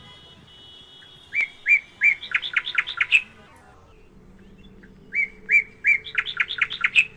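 A bird singing the same phrase twice, about four seconds apart: a few spaced notes that quicken into a rapid run and rise slightly in pitch before stopping.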